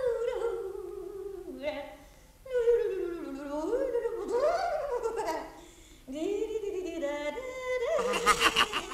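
Cartoon characters' gibberish voices: sing-song babbling whose pitch sweeps up and down, with short pauses, breaking into quick, rapid laughter near the end.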